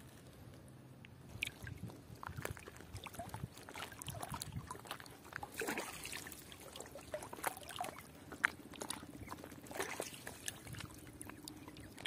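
Water splashing and dripping as a fishing net is hauled by hand through shallow water: irregular small splashes and trickles, starting about a second and a half in.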